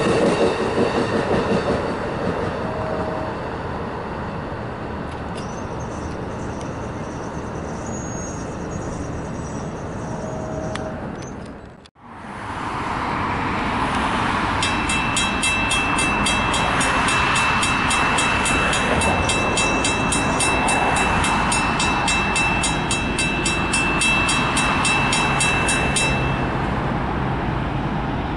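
A bilevel passenger train's cars rolling past over the rails. Then a mechanical railroad crossing bell rings with fast, evenly repeated strikes for about eleven seconds and stops, over a steady rumble.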